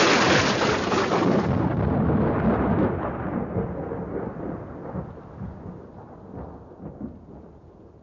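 A thunder sound effect: a clap that starts loud and rumbles away, fading slowly over several seconds.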